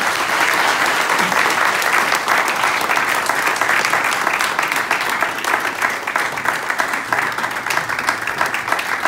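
A large audience applauding: many hands clapping at once in a dense, steady wash.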